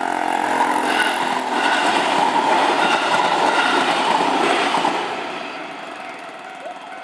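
JR Hanwa Line train passing over a level crossing: a loud rush of wheels on rail that builds, holds, and fades away about five seconds in.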